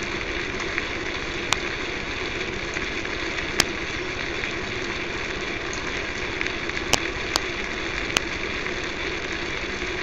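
Steady background hum and hiss with about five faint sharp clicks spread through it.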